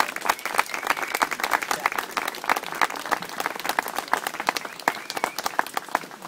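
Crowd of guests applauding: many hands clapping in a dense patter that thins out and fades near the end.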